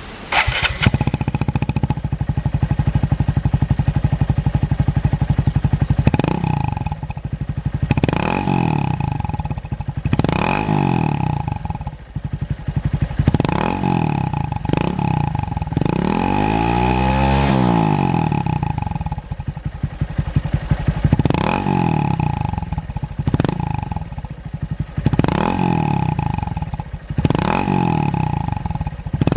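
Honda Monkey 125's single-cylinder four-stroke engine through a Takegawa P-shooter aftermarket exhaust. It starts up just after the beginning and idles steadily, then is blipped about ten times with the throttle, each rev rising and falling back to idle, with one longer, higher rev near the middle.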